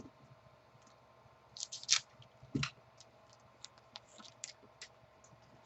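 Football trading cards being handled and flipped through: scattered short clicks and rustles of card stock, bunched together about two seconds in.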